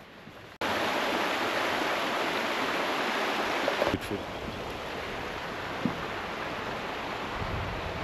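Shallow stream rushing over stones, a steady rush of water that cuts in suddenly about half a second in.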